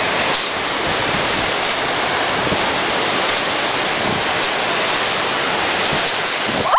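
Steady rushing of a waterfall and river rapids: an even, unbroken roar of falling and churning water.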